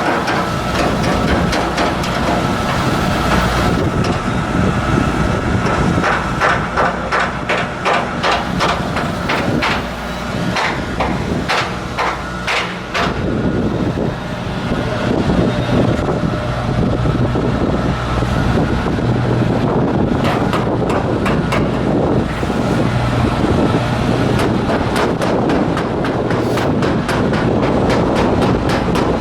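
Shipyard fitting-out work: irregular metal knocks and clanks from hammering, thickest in the first half, over the steady hum of running machinery.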